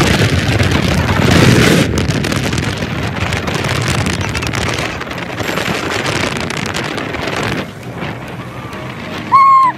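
Wind buffeting the microphone of a phone held out from a moving motorcycle, over the bike's running and road noise. A short, loud beep sounds near the end.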